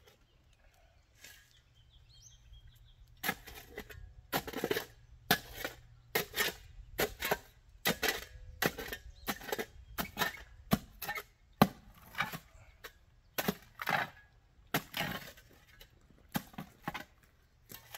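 A shovel digging a hole in hard, rocky ground: a string of separate scraping and chopping strikes, roughly one a second, starting a few seconds in, with one much louder strike near the middle.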